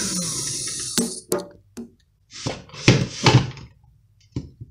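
Kenwood electric hand mixer's motor winding down after being switched off, its pitch falling away over the first second. Then come a few sharp knocks and clunks, and a short stretch of rustling handling noise.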